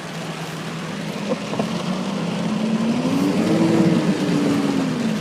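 Cummins diesel engine revving up and easing back off as the truck pulls from a stop up a muddy hill; the engine note rises for about a second and then falls.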